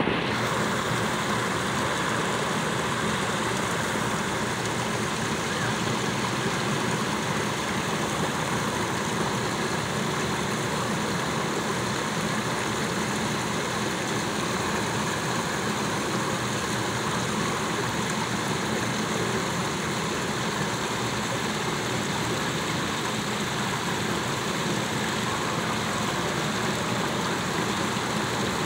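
Fountain water splashing steadily down over rocks into its pool, an even rushing noise.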